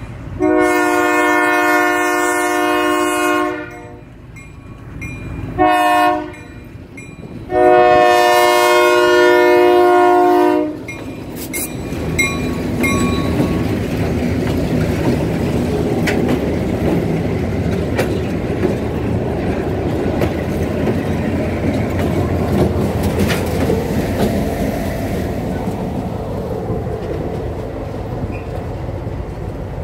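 Diesel locomotive air horn sounding a long blast, a short blast and a long blast, the end of a grade-crossing signal. The locomotives' diesel engines then rumble and their wheels clatter over the rail joints as the train passes close by, fading slowly near the end.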